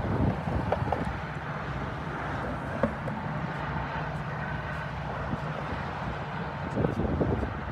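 A heavy engine running with a steady low rumble, with a few faint clicks and clatters over it.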